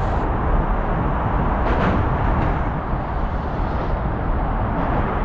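Steady wind buffeting the microphone on an open boat, a loud rushing noise that drowns out the reel and the water.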